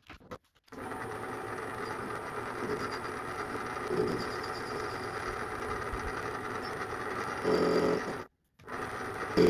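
Paulimot PM190-V bench lathe running with the chuck spinning, a steady machine sound with a thin high whine, as the tool turns the rounded corners of a steel part. It grows louder and takes on a pitched tone briefly near the end, then stops abruptly.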